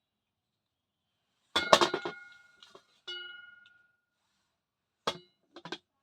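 Thick slate pencils cracking and clinking. A quick cluster of sharp snaps with a short ringing tone comes about one and a half seconds in, then one more ringing snap about three seconds in, and a few softer clicks near the end.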